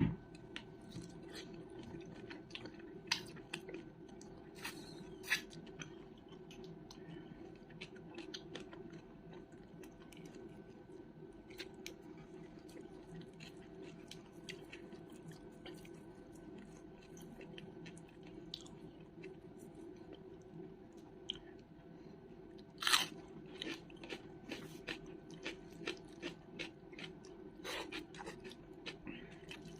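Close-miked chewing and crunching of a meal of pork curry, rice, salad and green chilli, with scattered wet clicks and bites and a louder crunch about 23 seconds in. A steady low electrical hum runs underneath.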